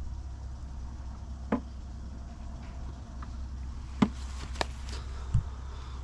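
A few short, separate knocks and clicks, about four, from tools and parts being handled while an outboard's lower unit and water-pump impeller are being worked on, over a steady low hum.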